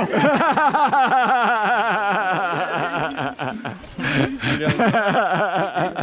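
A person laughing hard, a fast unbroken run of pitched 'ha-ha' bursts, several a second. The laughter eases a little about three and a half seconds in, then picks up again.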